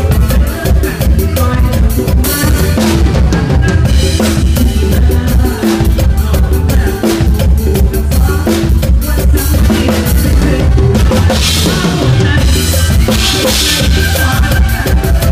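Drum kit played close up in a live mor lam sing band: a driving kick drum and sharp snare hits with cymbals, over the rest of the band. Late on, the cymbals wash louder for a couple of seconds.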